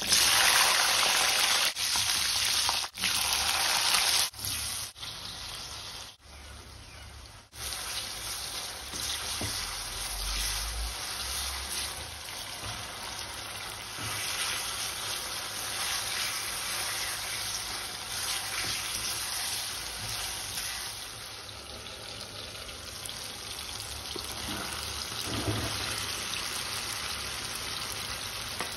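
Garlic, onion and tomato sizzling in hot oil in an iron wok, a steady frying hiss. It is loudest in the first few seconds and cuts out abruptly several times before about eight seconds in.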